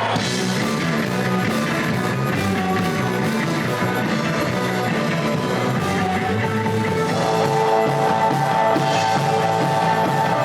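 Rock music with electric guitar over a repeating bass line, growing a little fuller about seven seconds in.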